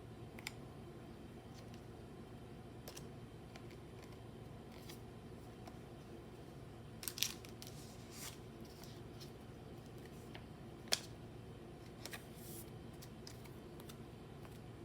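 Pokémon trading cards and their packaging being handled: a few short, sharp clicks and light rustles, clustered about halfway through with a sharper click about three-quarters through, over a low steady hum.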